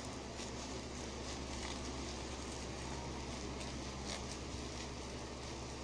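Bubble wrap crinkling and crackling with scattered small clicks as a child's fingers work at the plastic sheet, over a steady background hum.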